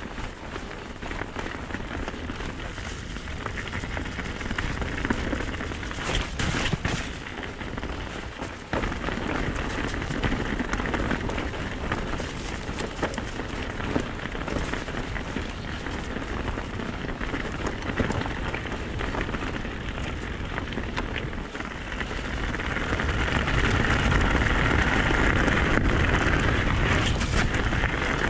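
Mountain bike tyres rolling over a wet, muddy and stony forest track, with small rattles and knocks from the bike. It grows louder about three-quarters of the way through as the bike picks up speed down a rocky descent, with a low rush of wind over the microphone.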